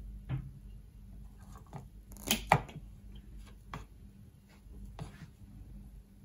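Side cutters snipping into 300-ohm ladder line, cutting a small gap out of one of its copper conductors: a series of short, sharp clicks, the loudest two close together about two and a half seconds in.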